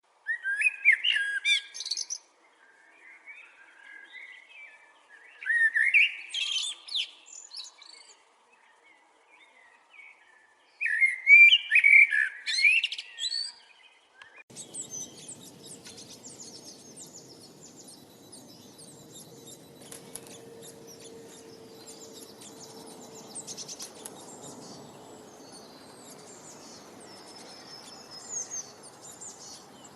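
A songbird singing loud, fast warbling phrases of about two seconds each, three times about five seconds apart, with fainter calls in between. About halfway through the sound switches abruptly to a steady outdoor hiss full of faint, distant bird chirps.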